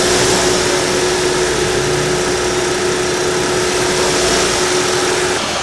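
2012 Chevrolet Sonic engine running steadily at idle after its water pump was replaced; the failing pump had caused a knocking noise that sounded like connecting-rod knock. A steady hum stops shortly before the end.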